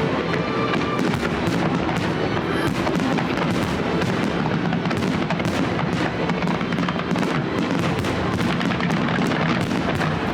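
Aerial fireworks display going off in a dense, continuous run of crackling bursts with no pause between them.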